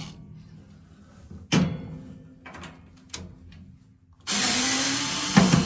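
Cordless drill-driver backing a screw out of the sauna heater's metal base plate; the motor runs steadily for the last second and a half. Earlier comes a single sharp knock, then a few light clicks.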